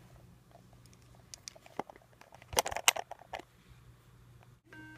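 Faint clicks and light tapping from hands handling a handheld camera and computer, loudest in a quick cluster of taps about two and a half seconds in. A steady electronic tone begins right at the end.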